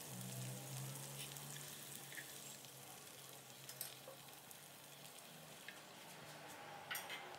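Faint, steady sizzling of hot cooking oil from frying chicken, with a few light clicks as a wooden spatula touches the plate.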